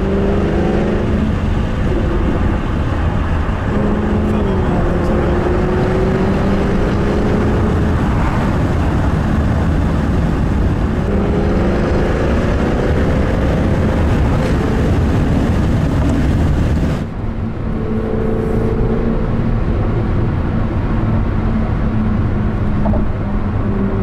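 Jaguar F-Type R's supercharged 5.0-litre V8 running under way, heard inside the cabin over road and wind noise, its note rising and falling with the throttle. About seventeen seconds in the sound changes abruptly and becomes duller.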